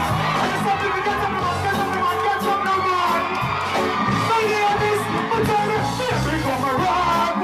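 Live dancehall music with a steady drum beat and bass, with some crowd whooping.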